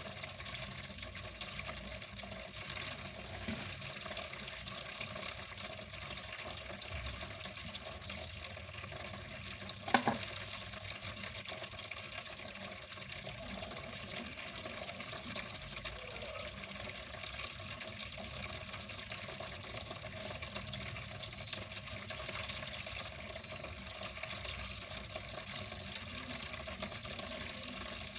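Water flowing steadily in a continuous even rush, with a single sharp click about ten seconds in.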